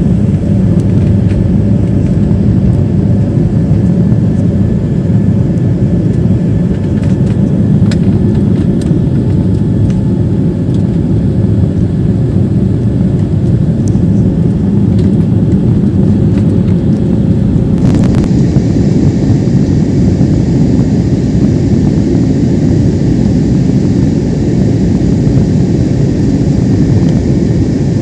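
Steady loud rumble of jet engines and rushing air inside the cabin of an Airbus A320-family airliner climbing after takeoff. A faint steady hum rides on it until about two-thirds of the way through, where the sound shifts slightly.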